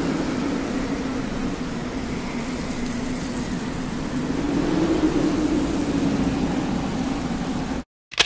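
A steady rumbling hiss with a low drone that swells slightly midway, cutting off suddenly near the end.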